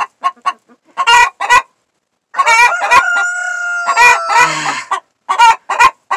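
Hen squawking and clucking loudly in short repeated bursts, the restless calling of a hen about to lay. About two and a half seconds in a rooster crows once, one long drawn-out call lasting about two seconds.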